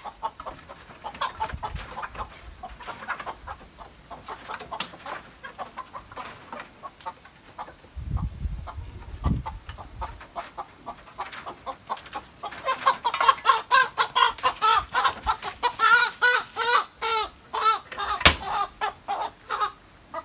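Domestic country chicken clucking in a wooden coop, with a few dull knocks, then from about twelve seconds in squawking loudly and rapidly as it is caught by hand: the distress squawks of a grabbed hen. The squawking stops just before the end.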